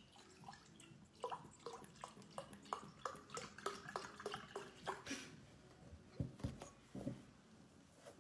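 Milk glugging as it is poured from a carton into a glass, in short gulps about three a second. A few low thuds follow near the end as the carton is set down on the table.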